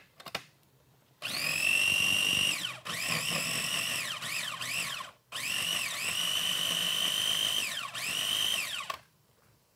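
Small press-top electric food processor running in several pulses, its motor whine rising as each pulse starts and falling as it stops: two long runs of a couple of seconds with short taps between, stopping near the end. It is blending avocado, lime, cilantro, garlic, oil, yogurt and water into a thick sauce. A few light clicks just at the start.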